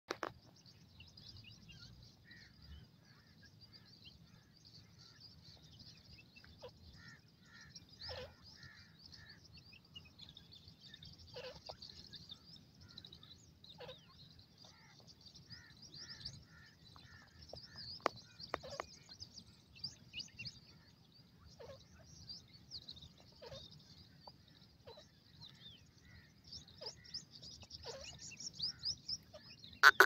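Grey francolin chicks giving soft, high, twittering peeps throughout, with scattered lower doubled chirps and a few faint clicks.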